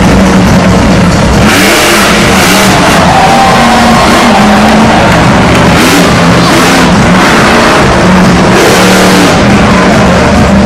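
Monster truck's supercharged V8 engine revving up and down repeatedly as the truck drives around the dirt arena, very loud.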